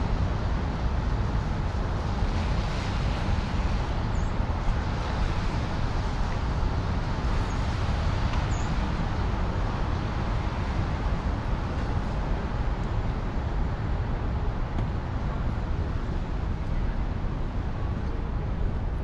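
Steady city street traffic noise, vehicles passing on rain-wet roads.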